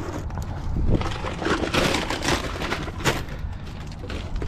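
Plastic snack and candy packaging rustling and crinkling in irregular bursts, with a few sharp knocks, as the packages are picked out of a plastic shopping cart by gloved hands.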